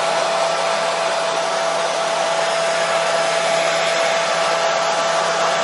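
Hair dryer running steadily: a constant rush of air with a steady motor whine, used as soothing white noise for colicky babies.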